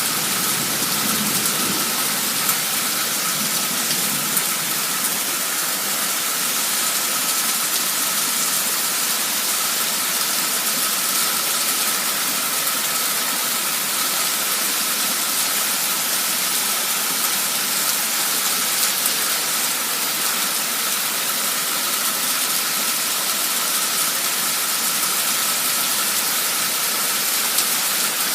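Torrential downpour: heavy rain falling in a steady, dense hiss, with a faint steady high tone underneath.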